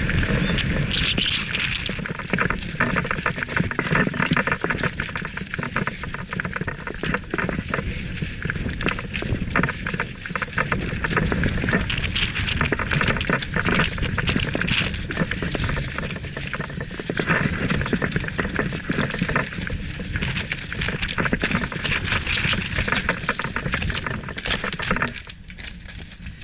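Mountain bike descending loose gravel and rocky trail: tyres crunching over stones and the bike rattling in a continuous clatter of small knocks over a low rumble. It eases off shortly before the end.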